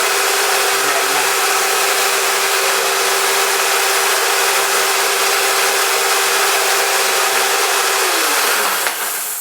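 Black & Decker Matrix Quick Connect circular saw, mounted as a table saw, running steadily at full speed; near the end it is switched off and its pitch falls as the blade spins down.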